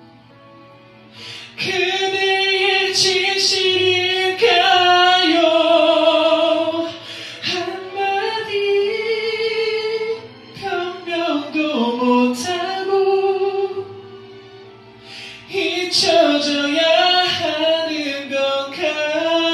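A woman singing a slow Korean ballad in long held phrases with vibrato, dropping quieter for a few seconds about two-thirds of the way through before the last phrase.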